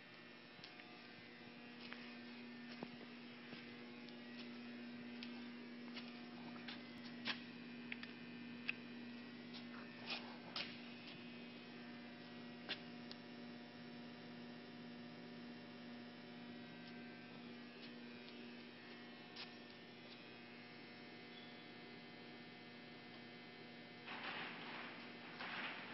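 Faint steady electrical hum from the powered-up Clausing CNC lathe while its Fagor control boots, with a handful of sharp clicks in the first half. The hum fades out about two-thirds of the way through, and a short rough noise comes near the end.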